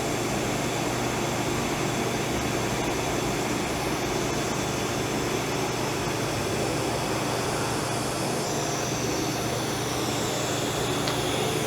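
TIG welding arc on a stainless steel tube joint: a steady hissing buzz with a low hum, held unbroken through a small, low-amperage fusion weld.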